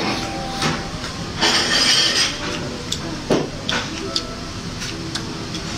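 Close-miked eating sounds of thick stir-fried noodles: a slurp about a second and a half in, then chewing with small clicks.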